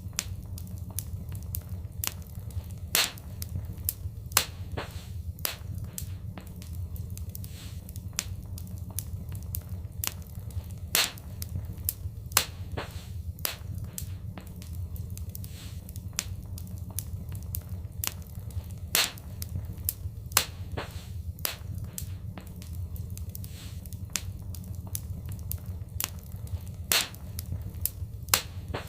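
Fireplace fire crackling: many irregular sharp pops and snaps, a louder one every few seconds, over a steady low rumble of the flames.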